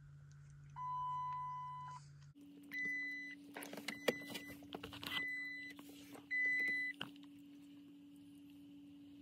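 Dodge Charger's dashboard warning chimes going off while the PCM is being reflashed and the cluster has lost bus communication: one lower chime, then four higher chimes about a second apart, with clicking among them. A steady electrical hum underneath shifts to a higher pitch about two seconds in.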